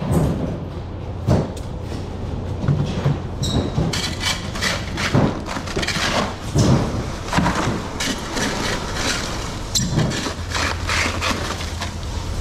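Styrofoam cooler boxes being slid and knocked about, and a metal hook scraping and clinking through crushed ice in a cooler: a run of irregular knocks and scrapes over a steady low hum.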